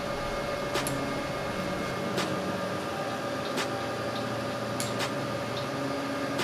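LOTMAXX SC-10 Shark 3D printer running a print: a steady hum from its hotend and part-cooling fans, with the quiet stepper motors' tones shifting in pitch as the print head moves, and a few light ticks.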